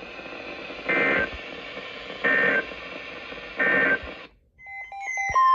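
Emergency Alert System end-of-message code over a radio broadcast: three short bursts of two-pitch data tones about a second and a half apart, over steady radio hiss, marking the end of the tornado warning. The hiss cuts off about four seconds in, and a few short beeps and then a steady tone start near the end.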